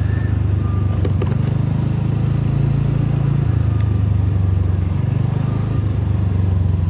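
A motorbike's engine running steadily while riding along a street, heard from the bike itself as a continuous low rumble. A few sharp clicks come a little over a second in.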